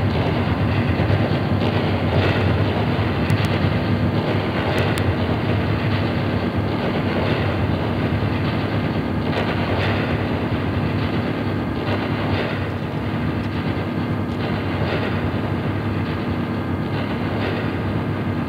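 Experimental drone-noise music recorded live to cassette tape: a dense, steady wash of noise over several low hum tones, with scattered faint clicks and no high treble.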